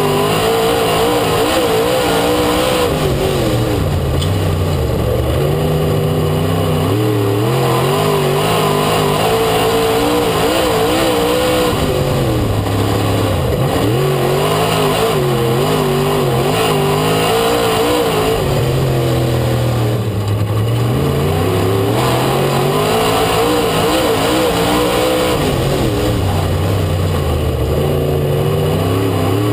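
Dirt-track race car engine heard from inside the car, loud and continuous, its pitch climbing as it is driven hard down the straights and dropping as the throttle is lifted into the turns, over and over, lap after lap.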